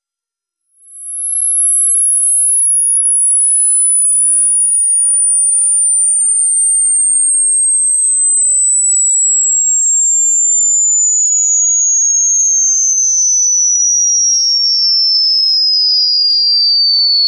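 Pure sine test tone for a high-frequency hearing test, fading in about a second in and then sweeping steadily down in pitch from about 11,700 Hz to below 5,000 Hz. The point at which a listener first hears it marks the upper limit of their hearing.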